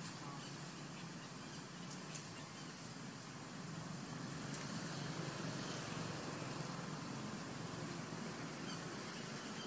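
Steady outdoor background noise with a low hum and a few faint ticks; no distinct call or event stands out.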